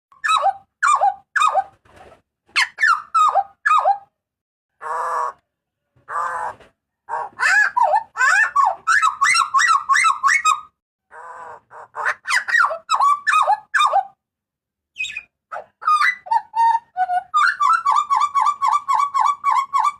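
Butcherbird ('jagal papua') calling loudly: strings of short, falling whistled notes, two harsh rasping calls around five and six seconds in, and a fast, even run of repeated notes near the end.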